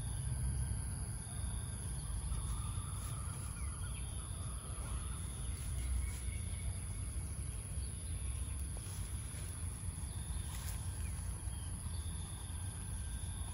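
Outdoor rural ambience dominated by insects: a steady high-pitched drone, with shorter chirps repeating about once a second over a low rumble.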